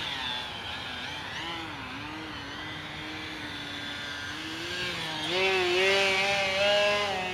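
Motor and propeller of an E-flite QQ Edge radio-controlled aerobatic model plane in flight, a steady droning pitch that wobbles up and down, then rises and gets louder about five seconds in.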